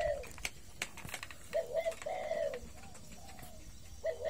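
Spotted dove cooing: a run of low, rounded coos starting about a second and a half in, with another coo near the end.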